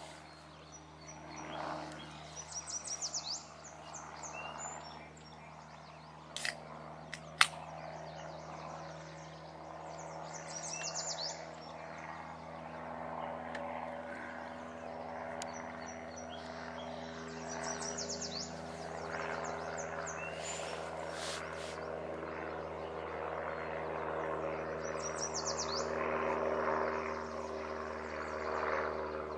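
A songbird repeating a short trilled phrase of quick falling notes about every eight seconds, over a steady low hum. Two sharp clicks about six and seven seconds in.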